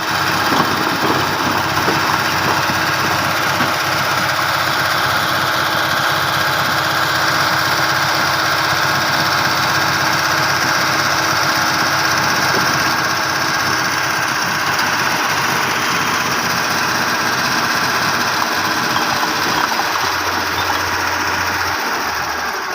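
A small engine running steadily at a constant speed, loud and unbroken.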